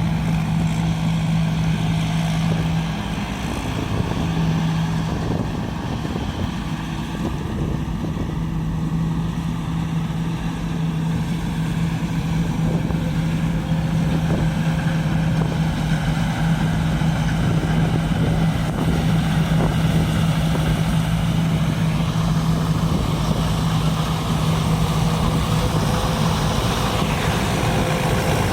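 A large combine harvester running steadily: a constant engine drone with one strong, steady pitch that dips briefly about three seconds in.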